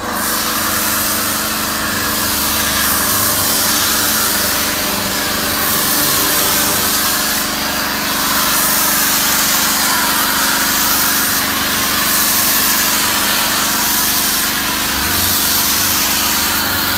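Compressed-air foam gun spraying snow foam onto a van: a loud, steady hiss of air and foam, with a steady low hum underneath.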